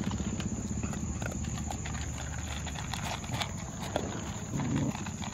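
Several dogs eating dry kibble from plastic bowls: fast, continuous crunching, chewing and snuffling.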